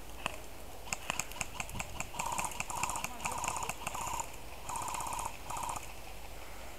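Airsoft guns firing: a quick run of single sharp clicks, then about six short full-auto bursts of rapid clicking with a buzzing whine inside each burst.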